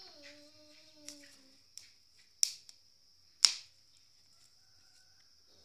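Charcoal fire crackling under maize cobs roasting on a wire grill: two sharp cracks a second apart near the middle and a few fainter crackles, over a steady high-pitched drone. Near the start, a short steady-pitched call of about a second and a half, like a chicken's.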